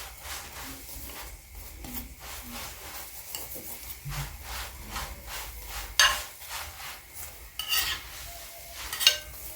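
Chapati frying in oil in a pan with a light sizzle, its surface rubbed and scraped in short repeated strokes as it is rotated in the pan. Three sharper clatters stand out, about six seconds in, near eight seconds and just before the end.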